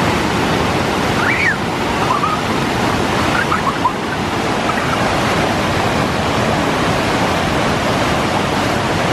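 Loud, steady rush of a small waterfall cascading and splashing over rocks.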